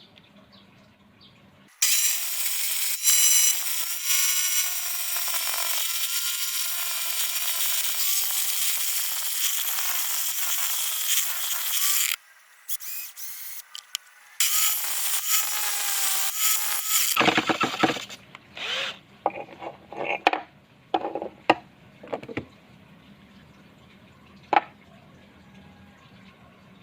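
Electric drill driving a homemade wood lathe while a tool cuts the spinning wood: the motor's whine wavers in pitch under the load over a loud hiss of cutting. It runs for about ten seconds, stops briefly, runs again for a few seconds, then gives way to scattered knocks and clicks.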